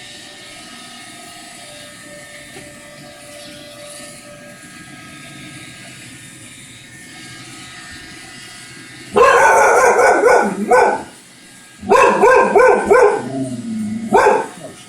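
A Roomba robot vacuum running with a steady hum, then about nine seconds in a dog breaks into loud, rapid barking at it, in two bouts.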